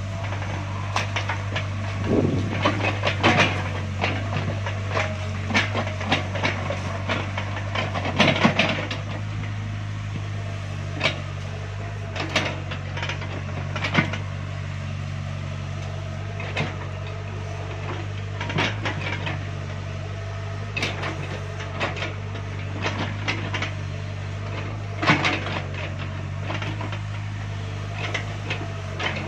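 S160 excavator's diesel engine running at a steady hum, with irregular knocks and clatters as the bucket works through wet mud, louder in clusters a few seconds in, around eight seconds and near the end.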